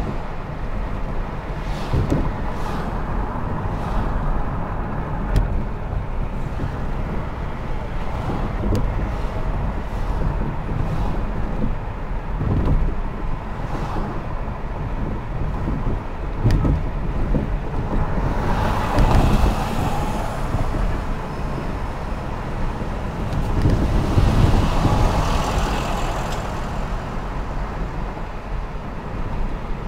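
Road noise inside a moving car: a steady low rumble of engine and tyres, with scattered light knocks as it rolls over the road surface. About two-thirds of the way through, two louder swells of rushing noise come a few seconds apart.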